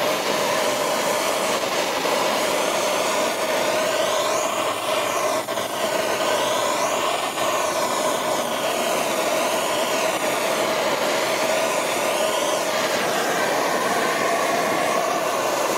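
Hand-held gas torch flame running steadily as it scorches the carved wood surface and burns off the loose fuzz. Its hiss wavers as the flame is moved around the carving, and it cuts off suddenly at the end.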